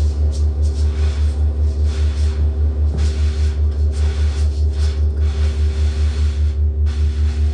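Experimental live electronics and amplified objects: a loud, deep electronic drone pulsing about four times a second, with steady higher sustained tones and scattered hissing noises over it.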